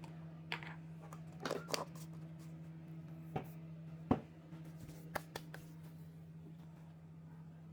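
Kitchen utensils and bowls being handled: a few light clicks and knocks, mostly in the first five seconds, over a steady low appliance hum.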